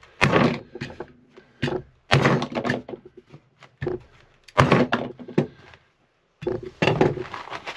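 Hand-squeezed staple gun firing staples through carpet into a pine pad: a series of sharp thunks, the four loudest about two seconds apart, with a few lighter knocks between.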